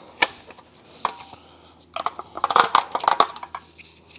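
Hard plastic parts of a floor washer's dirty-water tank being handled: a couple of sharp clicks, then a busier run of clicks and rattles in the middle.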